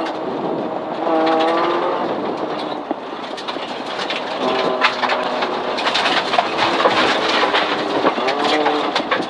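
Mitsubishi Lancer rally car's engine working hard at speed, heard from inside the cabin, its pitch rising and falling several times. Over it a steady roar of tyres on gravel, with many sharp ticks of gravel and stones striking the car.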